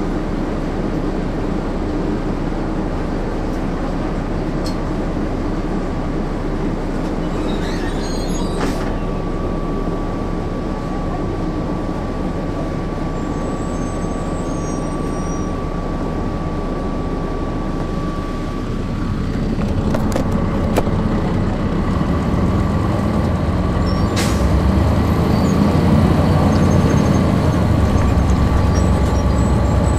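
Cummins C8.3 diesel engine of a 1996 Nova Bus RTS, heard from on board while the bus drives. It runs steadily at first, then grows louder about two-thirds of the way in as the engine pulls harder. A few short clicks sound along the way.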